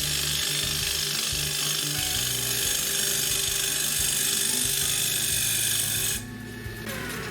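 Spindle gouge cutting wood on a spinning bench lathe: a steady hissing shear of shavings that stops abruptly about six seconds in as the tool is lifted from the work. Background music runs underneath.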